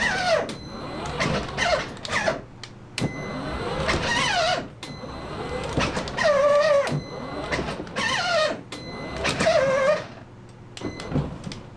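A dog whining: a series of about six high whines, each wavering and then sliding down in pitch.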